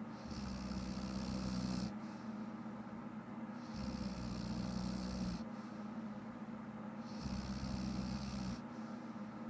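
A woman snoring in a steady rhythm, about one breath every three and a half seconds, each breath alternating a low buzzing phase with a breathier, hissier phase.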